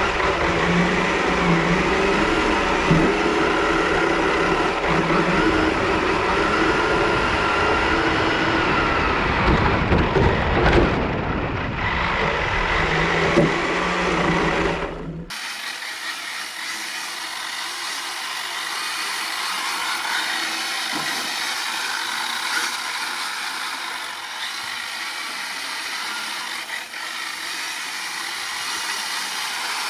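Kyosho DRX VE RC rally car's brushless electric motor and drivetrain whining, pitch rising and falling as the car drifts on ice, with the tyres scraping. About fifteen seconds in the sound cuts abruptly to a quieter, thinner version with the low end gone.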